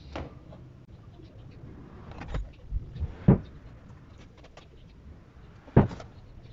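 Scattered handling knocks and clicks as multimeter probe leads and wires are moved about on a powered speaker's amplifier board, about five in all, the sharpest about three seconds in and near the end.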